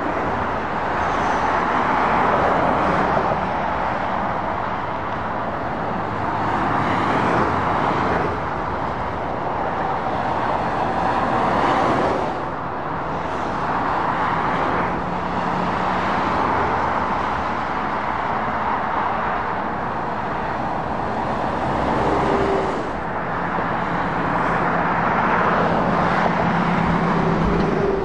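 Continuous traffic noise of lorries and cars passing on a dual carriageway: tyre roar and diesel engine noise swelling and easing as each vehicle goes by, with a low steady engine drone from a passing truck in places.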